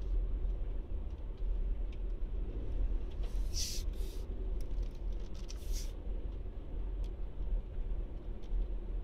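Low steady rumble of a car driving slowly, with two short hissing sounds, one about three seconds in and one near six seconds.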